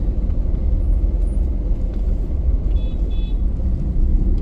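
Car running in slow traffic, heard from inside the cabin: a steady low rumble of engine and road noise. Two short faint high-pitched beeps come about three seconds in.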